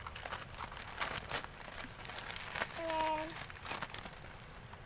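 Plastic courier pouch and bubble wrap crinkling and crackling as a parcel is torn open and unwrapped by hand. A short voice-like tone comes about three seconds in.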